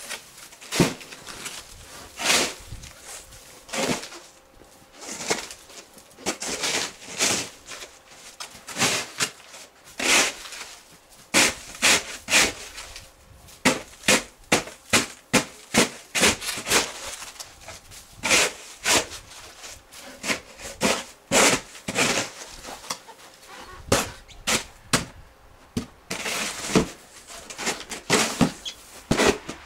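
Hand snow shovel with an orange plastic blade scraping along the paved path and scooping snow, stroke after stroke in an uneven rhythm.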